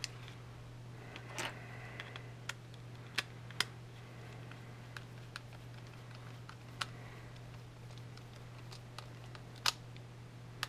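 Small screwdriver working the battery-cover screw of a plastic Scalextric ARC Air wireless controller, with scattered sharp plastic clicks and taps from handling the controller, over a steady low hum.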